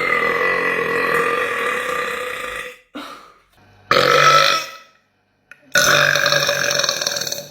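A young woman belching four times, each from a separate clip: a long burp of about three seconds, a short one, another short loud one, and a long burp of about two seconds near the end.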